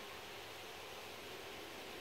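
Steady hiss with a faint hum of Carniolan honey bees flying around the hive entrance.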